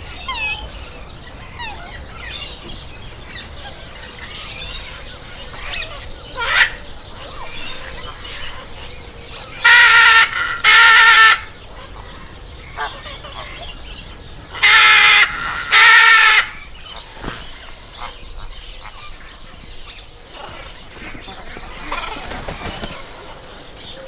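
Green-winged macaw squawking: four loud, harsh calls in two pairs, about ten and fifteen seconds in, over faint background bird chirps.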